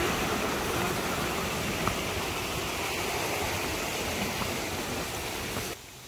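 Mountain stream rushing over rocks in small cascades: a steady wash of water noise that cuts off suddenly just before the end.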